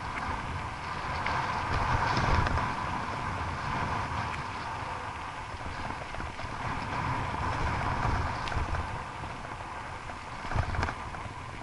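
Wind buffeting the microphone of a bike-mounted camera on a moving bicycle, over a rumble of tyres on rough, patched asphalt, with a few sharp knocks as the bike rattles over bumps.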